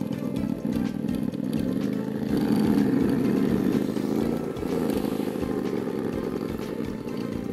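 Traxxas TRX-4 RC crawler's electric motor and geared drivetrain buzzing as it crawls over loose dirt clods, with some clatter from the tires and dirt. The buzz gets louder for a second or so about two to three seconds in.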